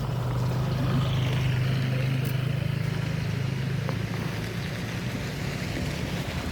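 A road vehicle's engine running close by, a low drone that is loudest about a second in and then slowly fades.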